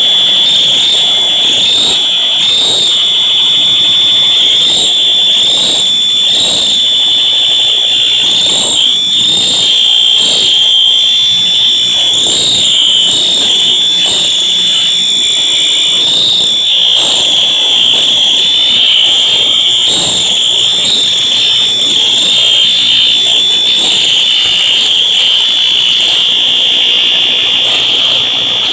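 Red fire-alarm horn-strobe unit sounding a loud, steady, high-pitched horn tone without pauses.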